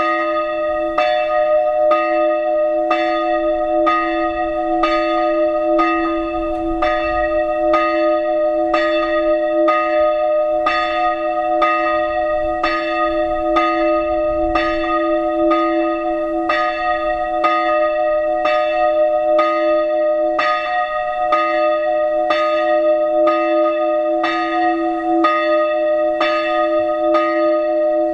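Church bells of a Protestant church ringing in a steady, even pattern, about one stroke a second, each stroke sustaining into the next.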